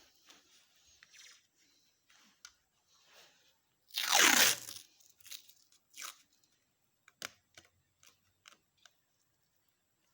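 Small clicks and handling noises, with one loud tearing sound about four seconds in that lasts under a second.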